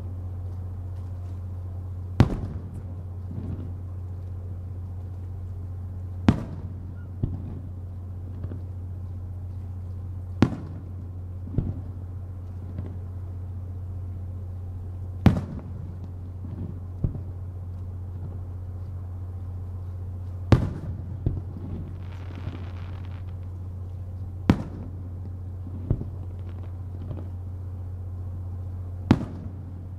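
Aerial firework shells bursting one at a time, a sharp loud bang about every four to five seconds with fainter bangs in between. A steady low hum runs underneath.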